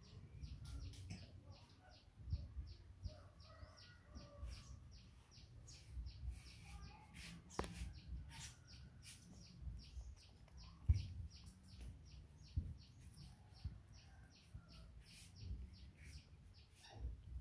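Outdoor garden ambience: a high, short chirp repeating about four times a second, with scattered bird calls and a low rumble underneath.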